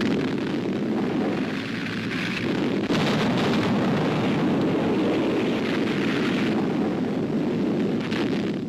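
Old newsreel battle sound: a continuous rumbling roar of shellfire and explosions. It turns harsher and brighter about three seconds in.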